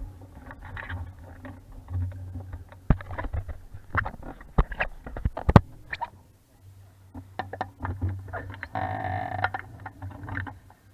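Wind rumbling on the microphone aboard a 420 sailing dinghy, with many sharp knocks and clicks from the boat and its fittings, and a short louder rush of noise about nine seconds in.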